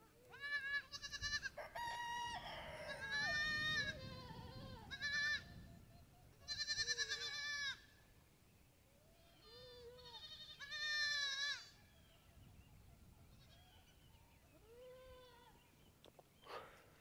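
Goats and kids bleating, many short wavering calls overlapping, some high and thin. The calls come thickest in the first half and again around ten to eleven seconds in, then turn sparser and fainter.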